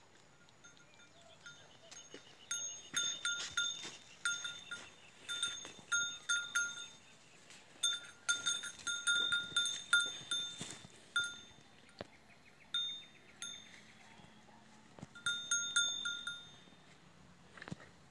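A metal cowbell clanking in irregular clusters of quick ringing strikes, with short pauses between the clusters.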